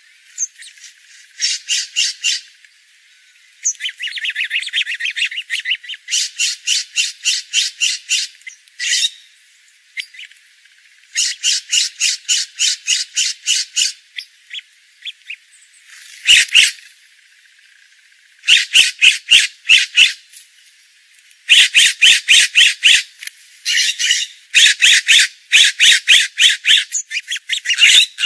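Scrub-jay calling in rapid runs of harsh, rasping notes, several notes a second, repeated every few seconds.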